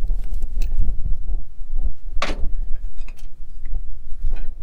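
Wind buffeting the microphone as a steady low rumble, with scattered knocks and clinks of hand tools and metal parts on the tractor; one sharper clink about two seconds in.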